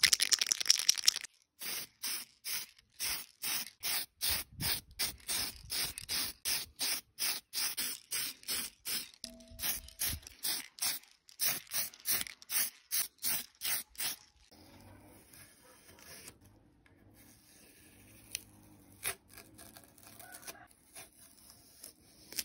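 Aerosol spray-paint can: the mixing ball rattles as the can is shaken hard for about a second, then the paint sprays in short, even puffs, about two and a half a second, for some twelve seconds. After that only faint handling clicks.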